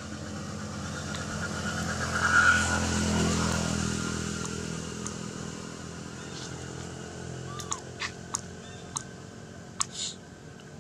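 A motor vehicle passing: its engine hum grows to a peak about two and a half seconds in, then fades away. Near the end come several short, sharp ticks.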